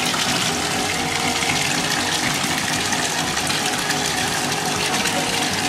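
Water pump running steadily, with a constant rush of water pouring and churning into the tank and a low motor hum beneath it.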